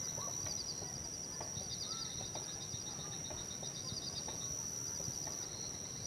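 Forest ambience: a steady high-pitched insect buzz with repeated bursts of rapid chirping, and scattered short bird calls.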